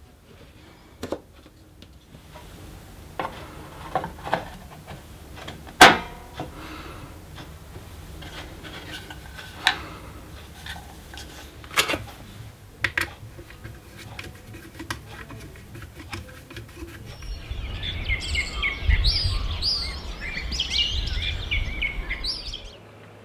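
Sharp clicks and knocks of hard gimbal parts (battery packs, carbon-fibre housing) being handled and fitted together, scattered and irregular, the loudest about six seconds in. From about seventeen seconds in, small birds chirping and singing over a low rumble.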